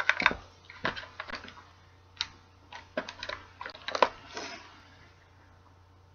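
A quick, irregular run of light clicks and taps from small hard objects being handled on a desk, which stops about four and a half seconds in.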